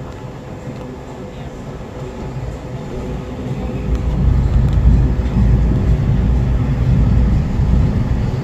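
A tour boat under way: its engine runs steadily with a low rumble that grows louder about four seconds in.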